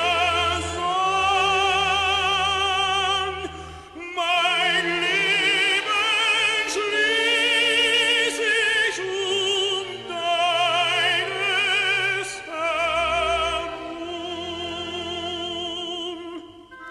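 A classically trained tenor singing a German strophic song with wide vibrato over orchestral accompaniment, in phrases with short breaths between them; the last few seconds are quieter.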